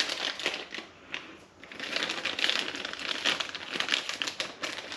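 Plastic packaging crinkling and rustling as small parts are handled, with many small crackles and a brief lull about a second in.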